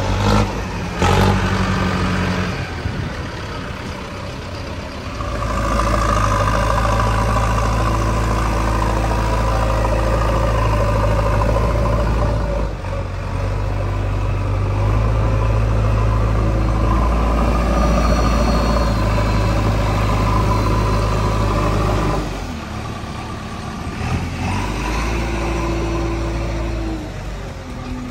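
JCB 3DX backhoe loader's diesel engine running and revving as the machine works. It pulls harder and louder from about six seconds in until a few seconds before the end, easing off briefly twice along the way. A sharp knock comes about a second in.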